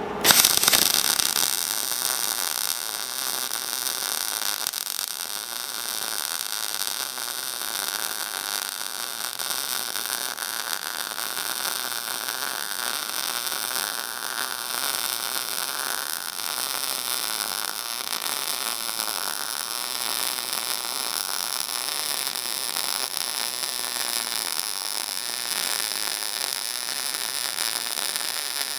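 Electric arc welding: the arc strikes with a loud sharp onset just after the start, then runs as a long, steady hiss.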